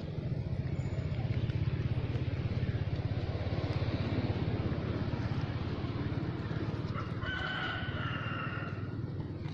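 A motorbike engine running past on a nearby road, a low pulsing rumble that swells through the middle and then eases. Near the end a rooster crows once, for about a second.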